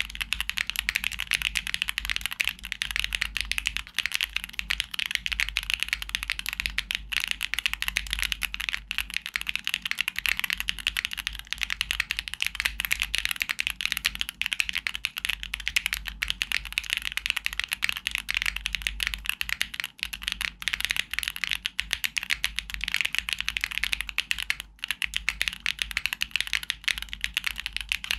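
Continuous fast typing on a Neo65 mechanical keyboard with Owlab Neon switches, an aluminium plate and PBTfans Spark keycaps: a dense, unbroken stream of clacky keystrokes.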